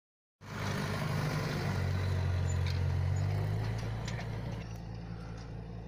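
John Deere 6420 tractor's diesel engine running steadily as it pulls a cultivator, a low drone that cuts in suddenly about half a second in and eases slightly in the second half.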